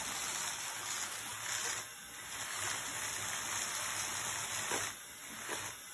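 Small DC gear motors of an Arduino-controlled RC car running as it spins in place, turning around its centre. It is a steady hiss-like whir that dips briefly about two seconds in and again near the end.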